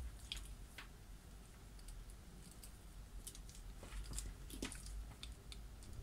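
Faint scattered clicks and rubbing from gloved hands working wires and probe leads into the terminals of a small dimmer circuit board, with a few sharper clicks a little past the middle.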